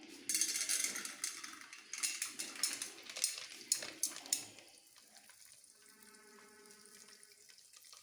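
Popcorn kernels poured into a heated pressure cooker, rattling and sizzling with many sharp ticks for about four and a half seconds, then settling to a faint sizzle with a faint steady hum.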